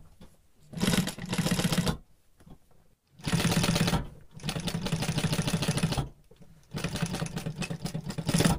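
Sewing machine stitching a seam in three runs, with short pauses between them. Each run is a rapid, even ticking over a steady low hum.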